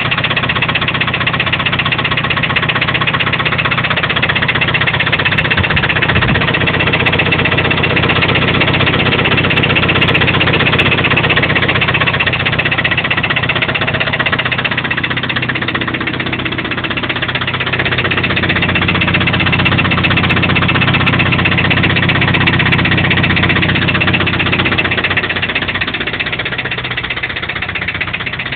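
Toyota 22RE four-cylinder engine running steadily with a fast, even knocking, a little quieter near the end. The owner cannot tell whether the knock comes from the rocker assembly or from deeper in the block, such as the rods or bearings.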